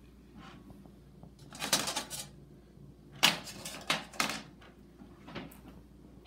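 Thin titanium cone windscreen lifted off an alcohol stove and set down on a metal baking tray: a short run of light metal clatter and scraping about one and a half seconds in, a few sharper clinks between three and four and a half seconds, and one more near five and a half.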